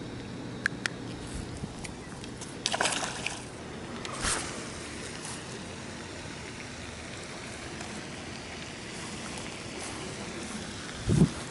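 A small largemouth bass dropped back into the pond, landing with one short splash about four seconds in. A quick run of clicks from handling comes just before it, and a strong low thump comes near the end.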